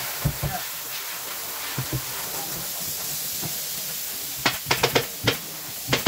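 Steady hiss, then a quick run of sharp clicks about four and a half seconds in and a few more near the end: a pneumatic upholstery staple gun firing.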